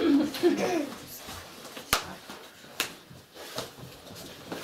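A short burst of voice in the first second, then a few sharp taps or clicks, the loudest about two seconds in and another just under a second later.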